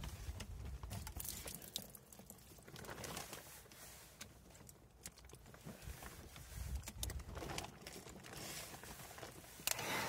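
Faint handling noises from a clear plastic hot tub flow switch tee being fitted into the plumbing: light rustling and small clicks. Near the end a sharp click, then a heat gun starts running with a steady blowing hiss.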